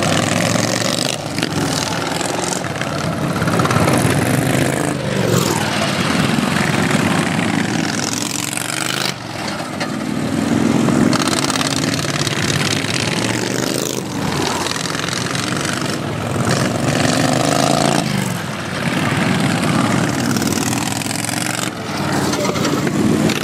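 Engines of modified racing lawn tractors revving hard as they race, their pitch repeatedly rising and falling as they accelerate and back off.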